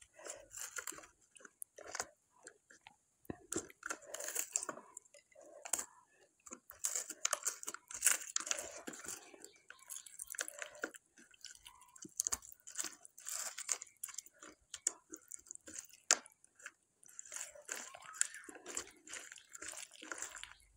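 Close-miked hand-mixing of food on a plate: fingers squishing rice into mashed bharta and crushing fried dried red chillies, with eating and chewing sounds. The sound is a string of irregular soft crackles and clicks.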